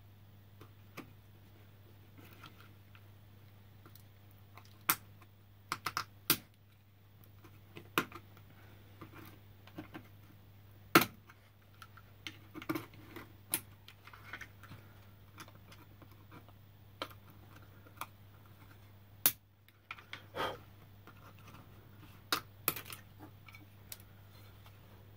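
Scattered sharp clicks and taps from handling an LED spotlight housing and its LED board, the loudest about eleven seconds in, over a steady low hum.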